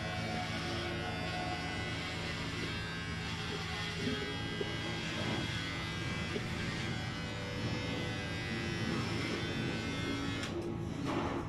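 Electric hair clippers buzzing steadily as they cut a boy's hair; the higher hiss drops away near the end.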